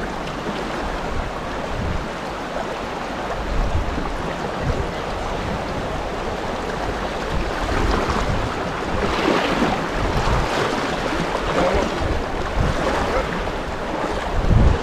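River water rushing steadily, with wind buffeting the microphone in irregular low rumbles.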